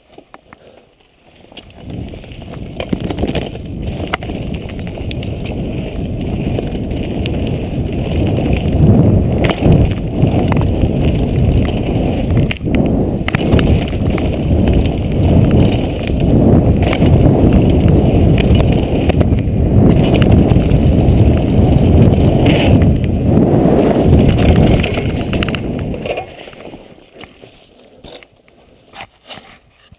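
Mountain bike descending a dirt trail at speed: wind rushing over the action camera's microphone together with the tyres rumbling over the ground, with occasional sharp knocks from bumps. The rush builds from about two seconds in and drops away a few seconds before the end.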